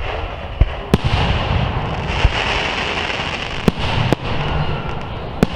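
Aerial fireworks shells bursting: several sharp bangs, about seven in a few seconds, over a continuous rumbling, hissing background of the display.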